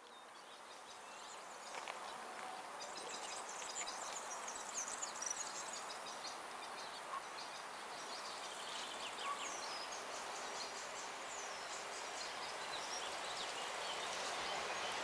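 Birds chirping over a steady outdoor hiss. Toward the end a rising rumble grows louder as an approaching PKP Intercity EU160 electric locomotive and its train come nearer.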